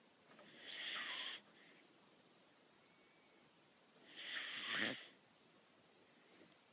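Whippet puppy snoring through its nose in its sleep: two long, hissing breaths about three and a half seconds apart.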